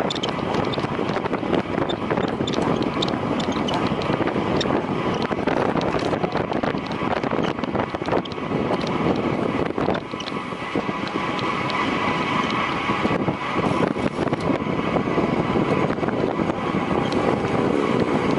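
Wind rushing over a bicycle-mounted camera's microphone while riding a road bike in a race, a steady loud rush with scattered light ticks.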